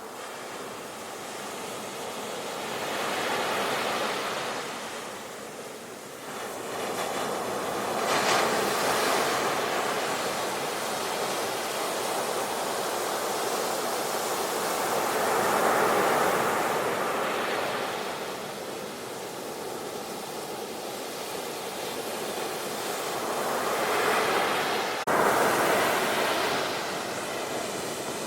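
Sea waves breaking and washing in, the surf noise swelling and fading every several seconds, with a sudden louder surge near the end.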